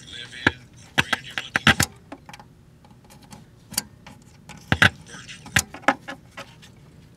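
Irregular sharp metallic clicks and taps from test leads and tools being handled on a tube amplifier chassis. A quick cluster comes about a second in, with a few single clicks later.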